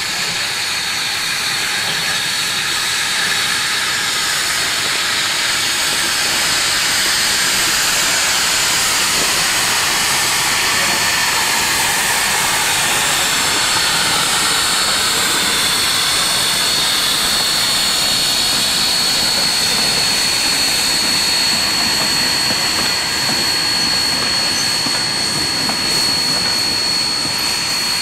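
Steam hissing steadily from 1881 Baldwin-built narrow gauge steam locomotive D&RGW No. 346 as it moves slowly past, with a thin high tone running through the hiss.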